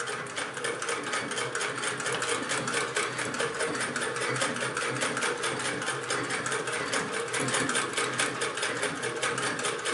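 1926 Singer 99 hand-crank sewing machine stitching through two layers of heavy denim, its mechanism clicking in a rapid, even rhythm as the crank is turned steadily.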